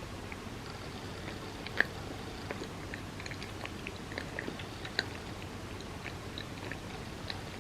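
Close-up chewing of a bagel with cream cheese: soft, wet mouth clicks and smacks, with two sharper clicks about two seconds and five seconds in.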